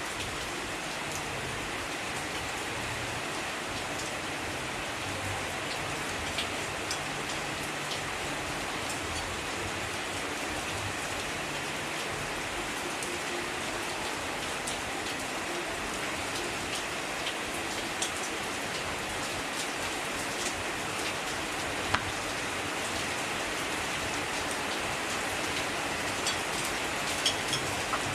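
Heavy rain falling steadily, a dense even hiss with a few sharp ticks scattered through it.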